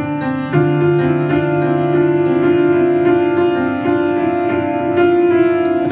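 Background music: an instrumental passage of held keyboard chords with no singing, the chord changing about half a second in.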